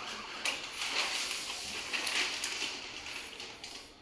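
Rustling and crinkling of a paper wrapping sheet being handled as an acrylic photo frame is lifted off a table, with a few light knocks of the frame along the way. The rustle fades toward the end.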